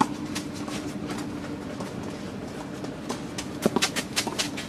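Tennis rally on an omni court: a racket hits the ball sharply at the start, then a quick run of sharp taps (player footsteps and a ball hit) comes about three and a half seconds in. A steady low hum runs underneath.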